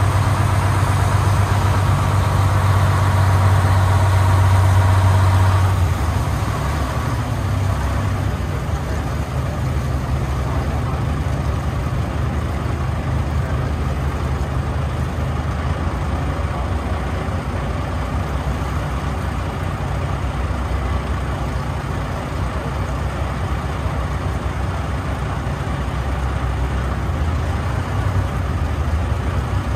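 A shuttle boat's engine running, heard from on board as a steady low rumble with water noise. A higher whine on top stops about six seconds in, and the rumble eases a little.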